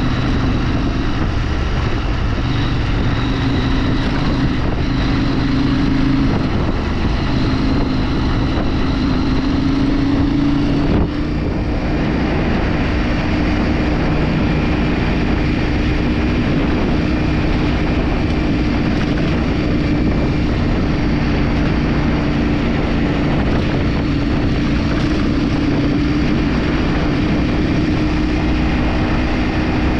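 Vehicle engine running steadily under way, with wind rushing over the microphone. The engine note shifts in pitch a little, with a short break about eleven seconds in, like a gear change.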